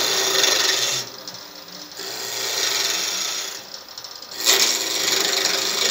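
A hand-held turning tool cutting a wooden spindle blank spinning on a Powermatic PM2014 wood lathe. It makes a steady hissing, scraping noise of wood being shaved, which eases off twice as the tool's pressure drops, over a faint steady hum.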